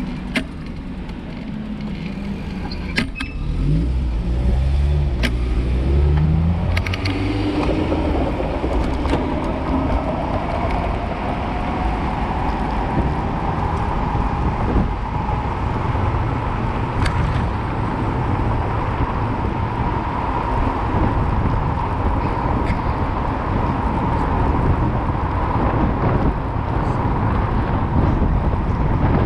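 Traffic noise from a bicycle riding a bike lane beside a road, with steady wind and tyre rumble. A few seconds in, a car passes close while accelerating, its engine note rising. Sharp clicks and rattles sound over bumps, and a steady whine rises in pitch and then holds.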